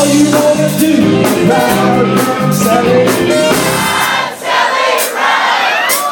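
Live band music: a man sings into a microphone over a drum kit, the drums hitting about twice a second.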